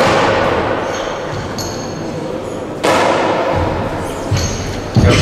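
Weight plates being changed on a barbell: a few metallic clanks and dull thuds as bumper plates are slid off the bar and set down, each ringing on in a large hall. The loudest, a heavy thud, comes near the end.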